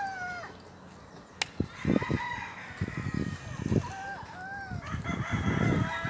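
Several roosters crowing, long drawn-out crows that overlap one another, with hens clucking. Low, rough rumbles and a few knocks sound close up in the foreground.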